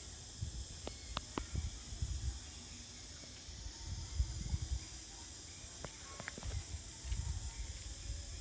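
Outdoor ambience: a steady high hiss like insects, with wind buffeting the microphone in gusts and a few brief high squeaks or clicks about a second in and again near the middle.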